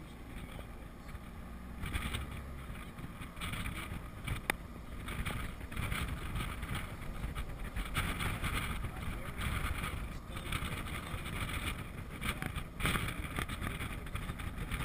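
Open-sided tour Jeep driving on a paved road: a steady rumble of engine and tyres, with wind noise on the microphone.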